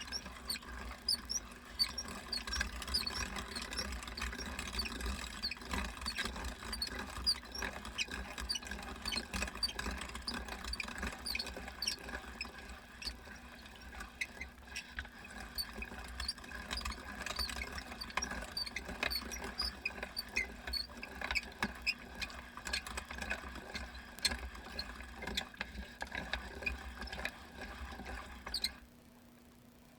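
Weston No. 32 hand-cranked meat grinder being turned as it grinds meat, with a steady run of small, high squeaks over a low rumble. The sound cuts off abruptly near the end.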